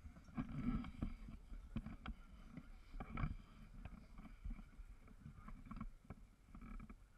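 Muffled low rumble of a tour catamaran underway, with scattered short knocks and faint voices of passengers on deck.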